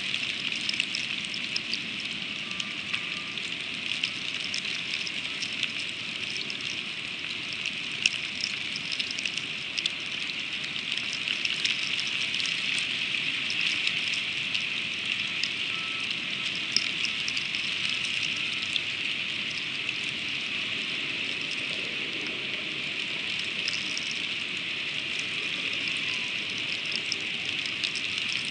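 Freezing rain falling steadily, a constant hiss with many small ticks of ice striking.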